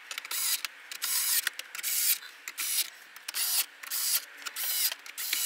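Cordless screwdriver driving the 7 mm screws that hold the head unit's brackets, in a string of short, high whirring bursts.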